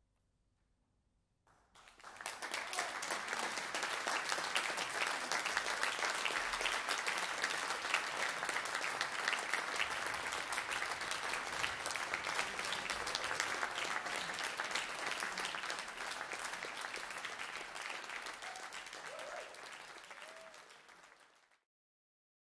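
Audience applause: after a brief silence, dense clapping starts about a second and a half in, holds steady, then dies down and cuts off abruptly near the end.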